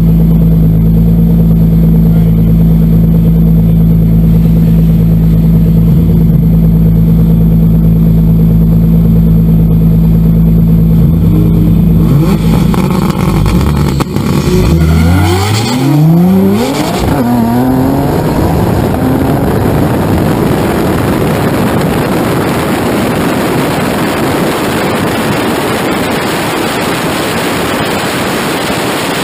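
Turbocharged GT-R engine running steadily at low, even revs. About halfway through it launches hard, rising in pitch through several quick gear changes. Then a steady rush of wind noise over the car at very high speed covers most of the engine sound, toward a top speed of about 173 mph.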